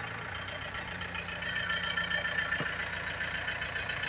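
Tractor engine running steadily, getting a little louder after about a second.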